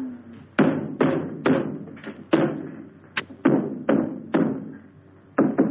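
A series of sharp knocks, about two a second, each dying away with a short ring, with a brief pause near the end before they resume.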